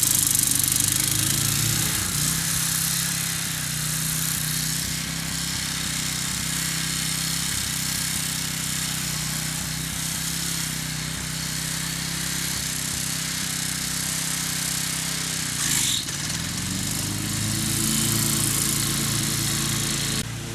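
Wolf-Garten riding mower engine running steadily while it mows tall grass. Its note dips and climbs back about two seconds in, and again around sixteen seconds in.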